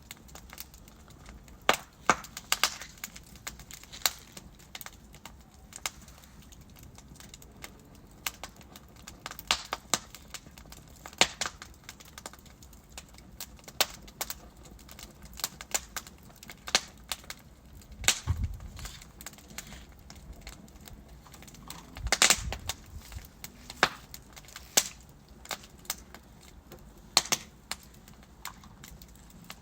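Wood fire burning in a fireplace: logs crackling and popping irregularly over a low hiss, with a cluster of louder pops about two-thirds of the way through.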